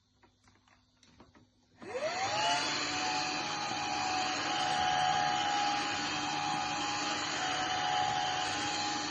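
A few faint clicks, then the Xiaomi Truclean W20 wet-dry floor vacuum switches on: its motor spins up with a quickly rising whine and settles into a steady run, a whine over a loud airy rush.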